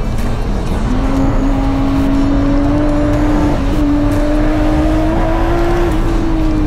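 Turbocharged BMW S54 straight-six of an E46 M3 race car running hard. The engine note dips briefly, climbs slowly through a long pull, then drops away near the end.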